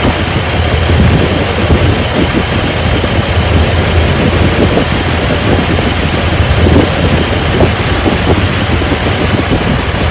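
Jeep Liberty engine idling steadily with a misfire, which the mechanic traces to a failed ignition coil on cylinder 2.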